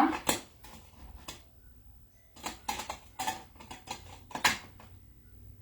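Kitchenware clinking and knocking: a handful of sharp clicks, a quick cluster of them in the middle and the loudest one near the end.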